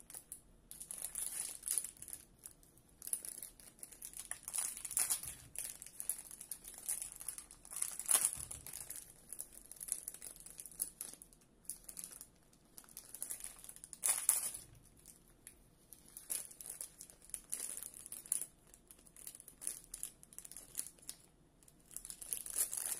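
Crinkly plastic snack packet being crumpled and pulled open by hand, in irregular crackling bursts, loudest about eight and fourteen seconds in.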